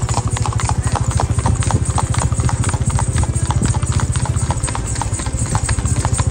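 Hooves of several horses clip-clopping steadily on the move, a dense, uneven run of strikes over a steady low rumble.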